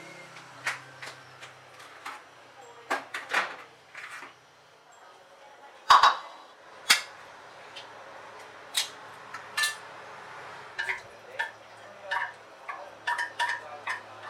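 Dishes and utensils clinking and knocking in irregular, separate strikes, with the loudest knock about six seconds in.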